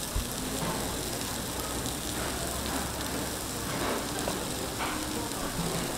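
Batter and cheese sizzling steadily on a hot cast-iron fish-shaped bungeoppang griddle, with a soft thump just after the start.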